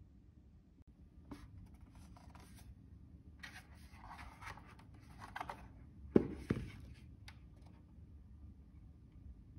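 Handling and unpacking metal stand parts: scraping and rustling of the parts and their packing wrap, then two sharp knocks in quick succession just past the middle, the loudest sounds, and a small click after them.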